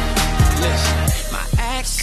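Hip hop music with a beat and deep bass notes that drop in pitch.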